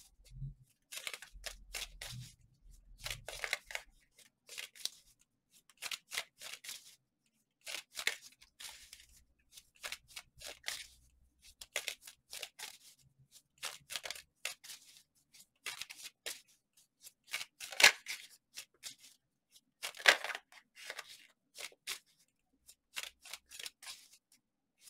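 A deck of tarot cards being shuffled by hand: a long, irregular run of short papery swishes and slaps, with two louder ones in the later part.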